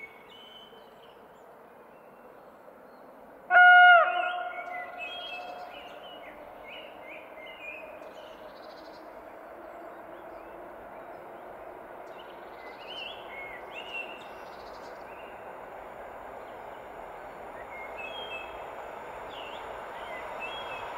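An approaching pair of coupled ED72 and EN71 electric multiple units gives one short horn blast about three and a half seconds in. This is the loudest sound. Its running noise then grows steadily as the train nears. Birds chirp throughout.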